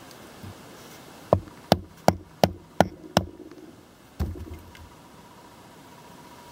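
Condor Pack Golok chopping into a small wooden tent stake to cut a notch: six sharp hits in quick succession, about 0.4 s apart, then one lighter hit about a second later.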